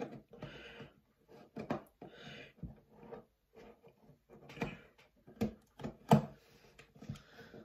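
Laptop box packaging being opened by hand with scissors: scattered clicks and knocks with a few short scratchy noises.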